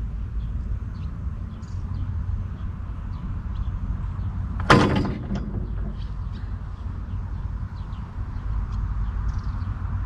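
A single loud creak about halfway through, from the pivot of an outdoor park exercise machine as it is worked, over a steady low rumble and faint chirps.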